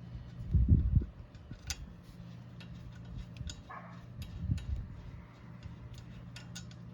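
Scattered light clicks and clinks from handling a brake caliper and its bolts while fitting it onto the front brake of a 2013 Dodge Grand Caravan. There is a dull low thump about half a second in and a softer one about four and a half seconds in.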